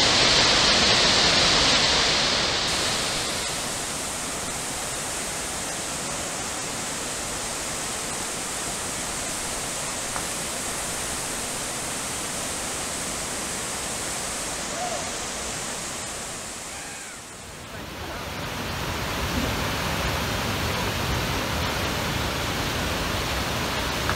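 Whitewater rapids and falls rushing: a steady, even roar of water. It drops in level a few seconds in, dips briefly past the middle, and comes back louder for the last few seconds.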